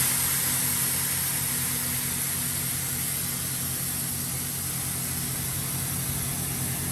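Truck air suspension dumping: a steady hiss of air venting from the air bags as the pickup lowers to lay out, slowly fading. Under it runs the low hum of an idling engine.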